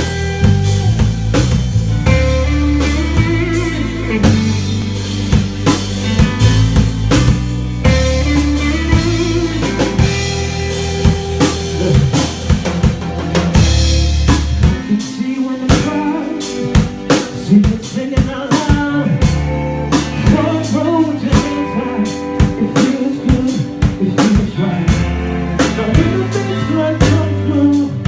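Live soul band playing: drum kit, electric guitar, keyboards and a deep sustained bass line. About halfway through the deep bass drops out for several seconds, leaving drums and keys, then comes back in.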